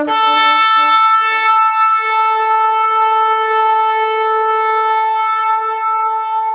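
Shofar blown in one long, steady note that starts abruptly and holds unbroken.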